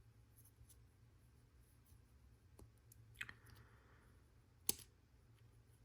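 Lego Technic plastic pieces being handled and pressed together: a few faint clicks, with one sharp click a little before five seconds in, over near silence.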